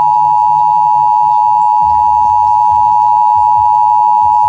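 Emergency Alert System attention signal: two steady sine tones, about 853 and 960 Hz, sounding together as one loud, unbroken two-tone alarm. It marks an EAS alert and comes just before the spoken test message.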